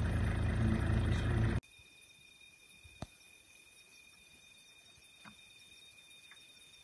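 A vehicle engine idling stops abruptly about a second and a half in. It leaves steady high-pitched insect trilling, with a single sharp click a little later.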